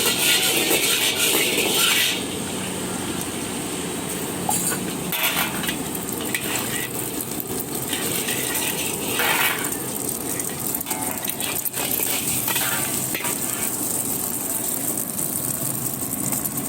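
Chicken chow mein sizzling as it is fried and stirred in a pan over a street-stall burner, loudest in the first two seconds, with short metal scrapes every second or two.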